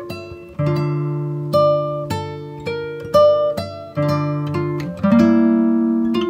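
Background music: acoustic guitar picking notes and chords, a new one about once a second, each ringing on and fading.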